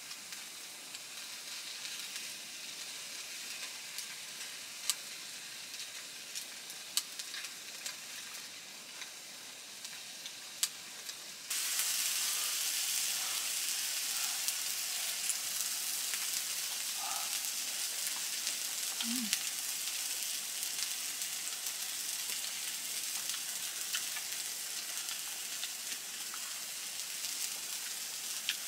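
Food sizzling in a frying pan, with scattered sharp crackling pops at first; the sizzle turns suddenly louder and denser about eleven seconds in.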